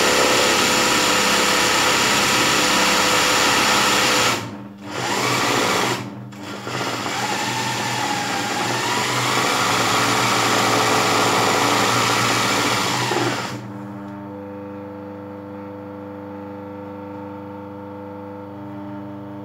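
Sewing machine stitching free-motion embroidery, filling a geometric pattern in fabric held in a hoop. It runs steadily, falters briefly about four and a half and six seconds in, then runs again and stops about two-thirds of the way through, leaving a quieter steady hum.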